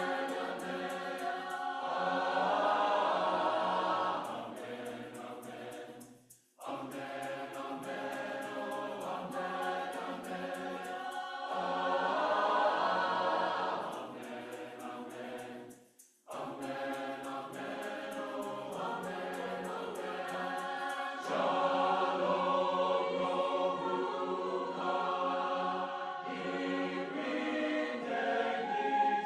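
Choir singing a South African choral song, with a shaker keeping a steady beat. The singing stops briefly twice, about six and sixteen seconds in.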